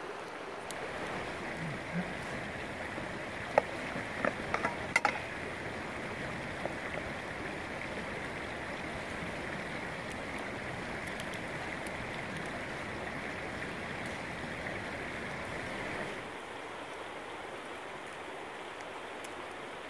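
Steady rush of a river flowing over rocks, with a few sharp clicks about four to five seconds in.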